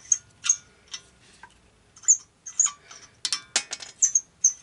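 Light metallic clinks and taps, some with a brief ring, from hand tools and parts being handled at a car's wheel hub. Short high chirps come between the clinks.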